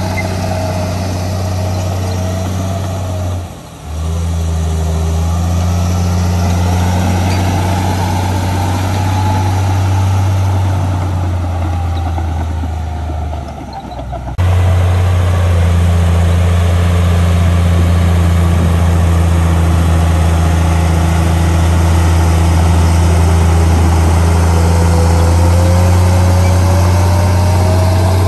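Komatsu bulldozer's diesel engine running steadily under load as the blade pushes soil and rock, a deep drone with a wavering higher whine above it. The sound drops out briefly and jumps back about three and a half seconds in and again around fourteen seconds in.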